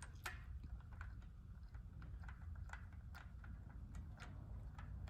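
Light, irregular clicks of a hand tool working small bolts into a bicycle's rear-sprocket hub mount, over a faint low hum.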